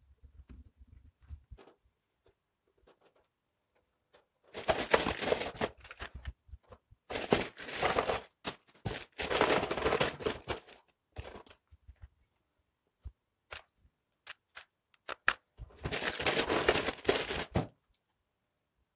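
LEGO Spike building parts being handled and rummaged through by hand: four bursts of rustling plastic noise with scattered clicks between them.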